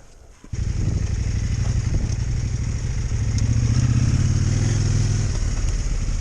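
Motorcycle engine running steadily, cutting in abruptly about half a second in and swelling slightly around the middle.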